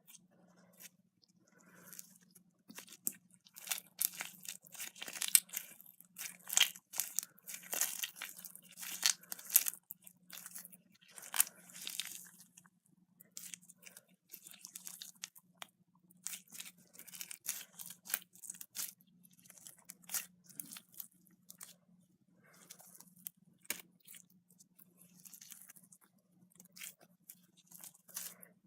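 Slime worked by hand, squished and stretched, giving off irregular crackling and popping clicks that come thickest in the first half. A faint steady low hum runs underneath.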